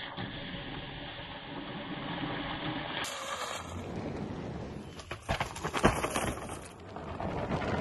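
Onewheel electric one-wheeled board being ridden: its hub motor and tyre run over the ground, with a run of sharp knocks after about five seconds.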